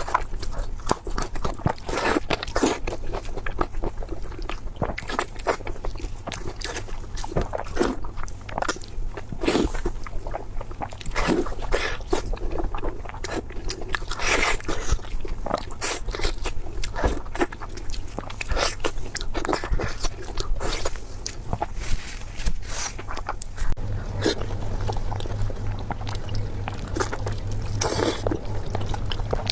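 A person biting and chewing food close to the microphone: irregular wet, crunchy mouth sounds, with a steady low hum underneath that grows louder near the end.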